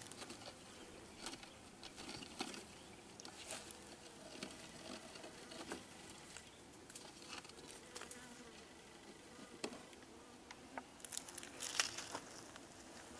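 Bees buzzing faintly around a wooden box beehive, with scattered light clicks and rustles from the wire tie and wooden parts being handled. A cluster of louder knocks comes near the end as the lid is lifted off.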